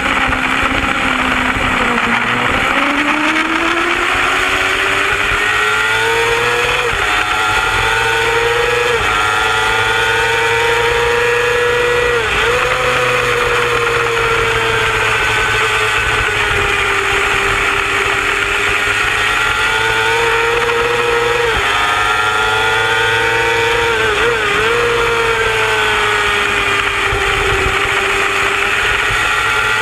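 Racing superbike engine at high revs, heard close from an onboard camera with wind rush. The note climbs and drops sharply at several gear changes.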